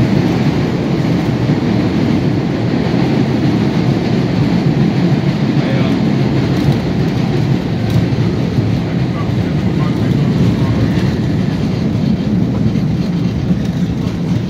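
Boston subway train running through a tunnel, heard from inside the car: loud, steady noise of the wheels on the rails.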